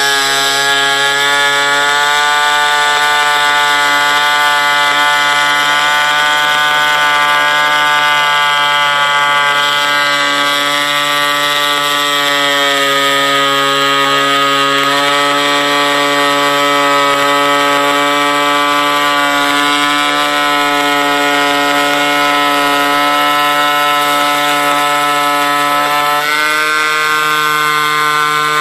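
Reciprocating needle foam cutter running through a 0.035" copper welding-tip guide while cutting foam board, giving a loud steady buzz. The pitch shifts slightly about ten seconds in and again near the end.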